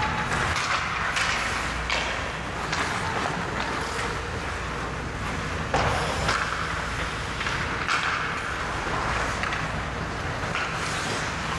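Ice hockey play: skates scraping and carving the ice over a steady low hum, with scattered sharp clacks of sticks and puck, the loudest about six seconds in.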